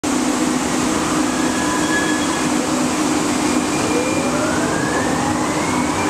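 Inside a Siemens S200 light-rail car: a steady hum and hiss, and from about four seconds in a rising whine from the traction motors as the car starts to pull away from the station.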